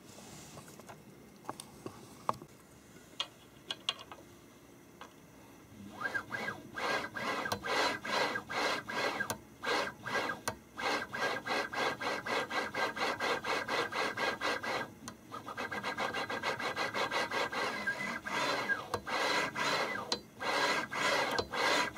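Rapid repeated scraping and rubbing strokes, about three a second, as hands work parts of a delta 3D printer's lower belt tensioner against its aluminium extrusion frame. The strokes start about six seconds in after a few light clicks, with a short break about two-thirds through.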